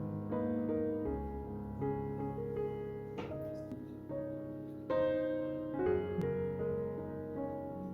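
Background piano music: a gentle, steady run of held notes and chords.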